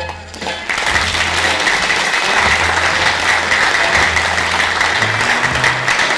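Audience applauding, starting suddenly just under a second in and holding steady, with music playing underneath.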